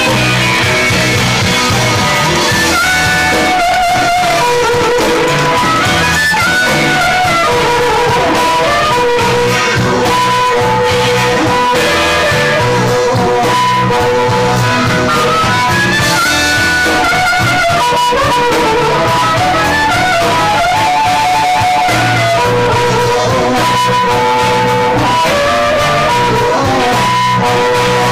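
Live blues band playing a slow blues, with harmonica leading in long held, bending notes over electric guitar, bass and drums.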